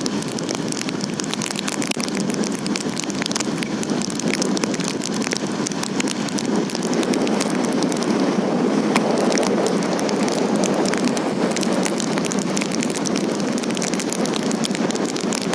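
Steady rain with a dense patter of small drop ticks, a little heavier from about halfway through.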